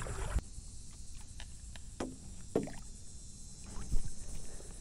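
Stand-up paddleboard paddle dipping and splashing in shallow water, with a few scattered short splashes and light knocks; the loudest comes about four seconds in.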